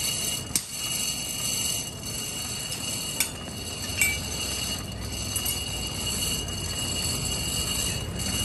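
Hand-cranked forge blower whining steadily as it drives air down a pipe into a charcoal fire, with a few sharp metal clicks and a low rumble that grows from about halfway.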